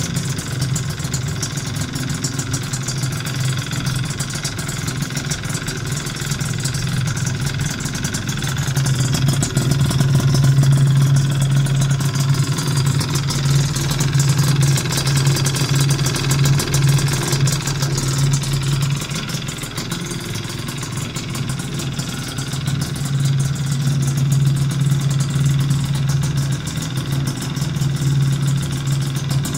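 Piaggio Zip SP's two-stroke engine, tuned with a Malossi 172 cylinder kit and a PM Tuning expansion-chamber exhaust, breathing through an under-seat air filter, idling steadily on its first run. The note grows louder for stretches in the middle and again near the end.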